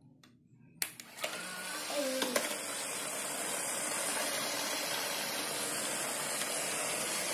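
Small electric motor of a homemade matchbox-and-can toy train switched on with a click about a second in, then whirring steadily as it drives the wheels.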